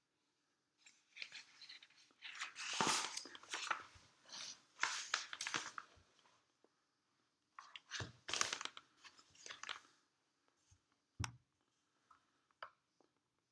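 Hole-punched sheets of paper being handled and turned over: two spells of crackling paper rustle, then a sharp click near the end and a few faint ticks.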